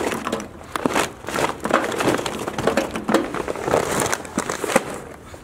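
Charcoal briquettes poured from a paper bag into an offset smoker's firebox, clattering onto the coals in a run of sharp knocks while the bag crinkles. The pouring stops shortly before the end.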